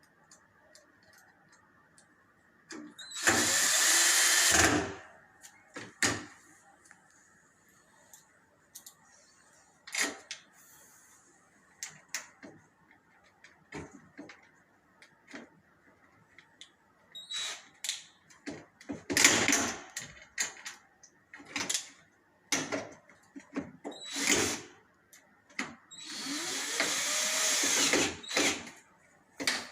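Cordless power screwdriver running in two bursts of about two seconds, a few seconds in and near the end, driving screws back into a washing machine's panels. Sharp clicks and knocks of parts and tools being handled come in between.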